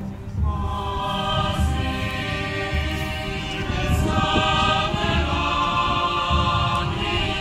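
Parish choir singing a slow hymn, accompanied by a town wind band whose low beat falls about once a second. The singing comes in about half a second in and holds long notes.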